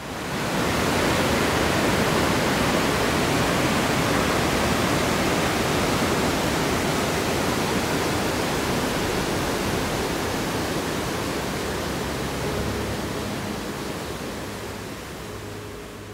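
Steady rush of turbulent white water in a river. It swells up from silence at the start and slowly fades over the last few seconds as background music comes in.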